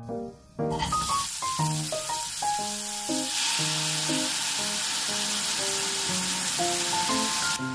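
Sliced onions sizzling in a hot frying pan. The sizzle grows louder about three and a half seconds in, as soy sauce is poured over them, and stops suddenly near the end. Light background music with piano-like notes plays throughout.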